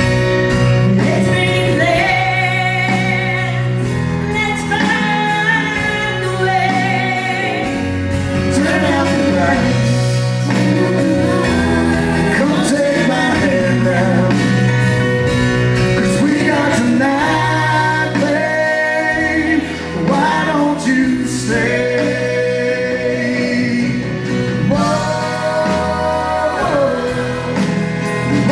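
Live band playing a slow ballad, with a male and a female singer singing a duet together over keyboards, bass, guitar and drums.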